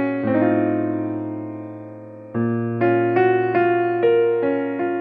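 Background piano music: a slow melody of struck notes over chords, with one chord held and left to fade for about two seconds before the next phrase comes in.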